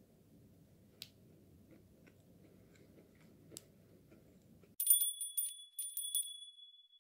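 A bright, sparkling chime sound effect for a logo card: several quick bell-like strikes, then one ringing tone that fades out near the end. Before it, only faint room noise with a couple of small clicks.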